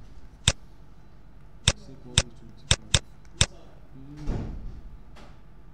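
Six sharp, unevenly spaced clicks of a stylus tapping a tablet screen while writing by hand, followed about four seconds in by a short breathy voice sound.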